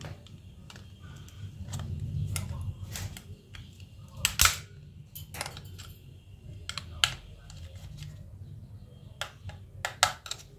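Scattered sharp plastic clicks and clacks from a Nokia 1209 handset's casing and parts being handled, with one loud click about four seconds in and a quick cluster of clicks near the end, over a low steady rumble.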